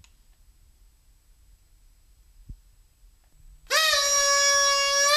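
A fringed paper party horn blown once near the end: one loud, steady reedy toot lasting about a second and a half, its pitch lifting slightly as it stops.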